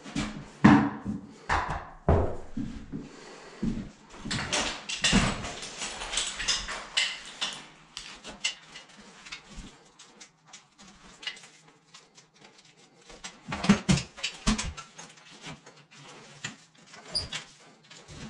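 Drywall stilts being strapped on: irregular knocks and clicks from the stilt frames and strap buckles, with a scraping rustle of straps from about 4 to 7 seconds in and a cluster of louder knocks near 14 seconds.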